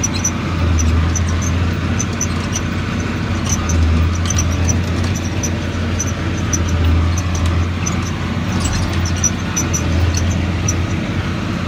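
John Deere 4850's six-cylinder diesel engine running steadily under load while pulling a Hesston square baler, heard from inside the cab. Its low drone swells about every three seconds, with faint light ticking over it.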